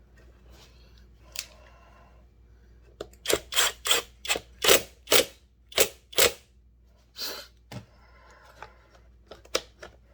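A quick run of about eight sharp knocks and clicks, then a few fainter ones near the end, from hand work fitting a drive sprocket onto a battery chainsaw.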